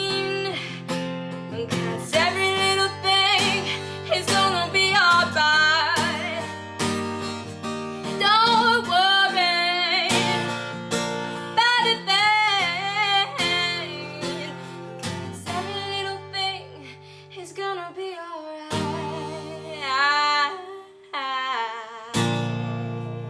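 Girl singing over a strummed acoustic guitar. Near the end a final chord is struck and rings out as it fades.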